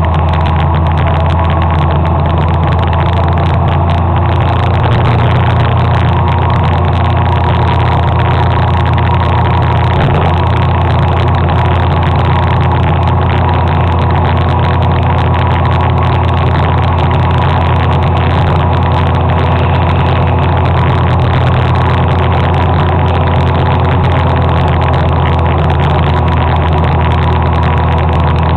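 Motor scooter engine running at a steady cruising speed during a ride, a constant, even engine hum with no rises or falls in pitch.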